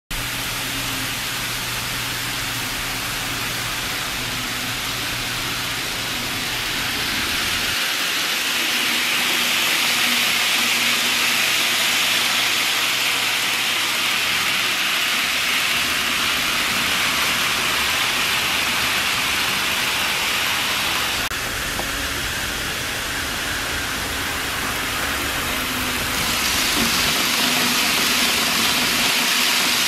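W7/E7 Shinkansen model train running on layout track: a steady whirring hiss from its motor and wheels on the rails. It grows louder twice as the train passes close by, from about eight seconds in and again near the end.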